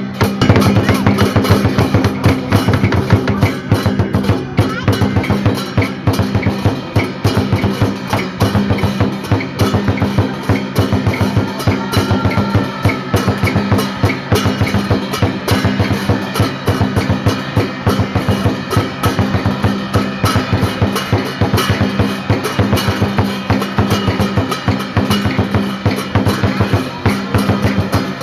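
Traditional Vietnamese water puppet theatre music: rapid, dense drumming over steady held tones, running without a break.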